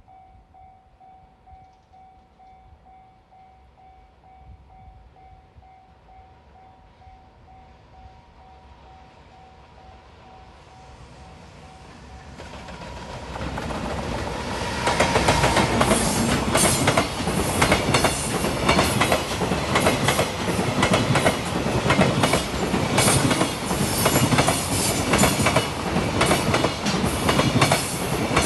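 A Japanese level-crossing alarm sounds in a steady repeated ding at first. A freight train hauled by an EF210 'Momotaro' electric locomotive then comes up, growing louder from about ten seconds in. From about halfway through it passes close by, loud, its wagons' wheels clattering rapidly over the rail joints.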